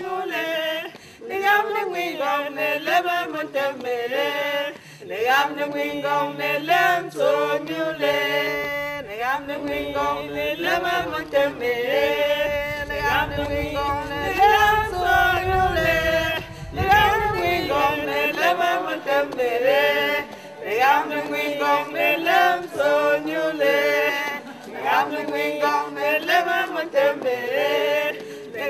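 A small group of women and a man singing a song together in the Mankon language, with male and female voices. A low rumble sits under the singing from about twelve to eighteen seconds in.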